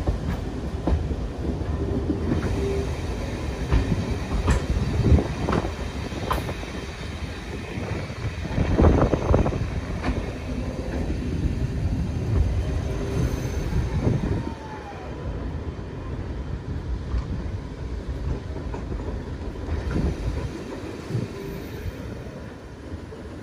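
Train hauled by a class 08 diesel shunter running along the line: a steady rumble of wheels on rail with scattered knocks and clanks and a brief squeal near the start. It gets quieter a little past halfway.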